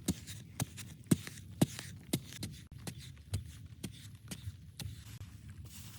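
Sharp knocks repeated about twice a second, fainter in the second half.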